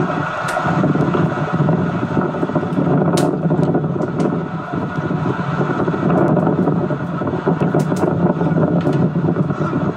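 Steady wind noise rumbling on the camcorder's microphone at the beach, with a few faint clicks.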